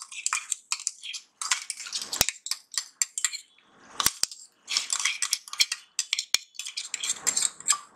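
A metal spoon scraping and clinking against cookware in quick, irregular strokes, with several sharp metallic clicks, as ground poppy seed paste is put onto a masala frying on an iron tawa.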